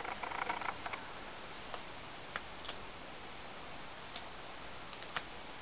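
An eagle tearing at a trout pinned to its wooden perch, beak pulling at the flesh. A quick run of small wet clicks and snaps comes in the first second, then single sharp clicks every second or so.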